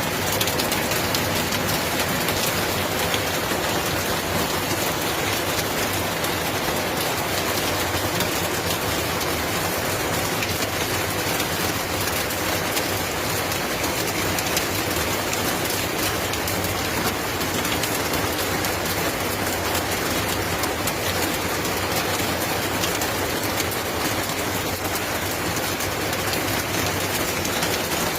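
Heavy monsoon rain falling, a steady unbroken hiss with fine pattering throughout.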